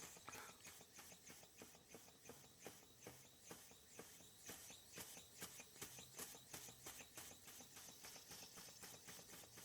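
Gaselan DM2 model steam engine running, very quiet: a faint, even clicking several times a second as it turns over.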